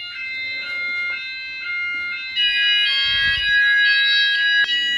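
Wireless fire alarm sounders going into alarm, set off by a smoke detector under test. An electronic tone steps between pitches a couple of times a second, and about halfway through it grows louder as more sounders join in. A single sharp click comes near the end.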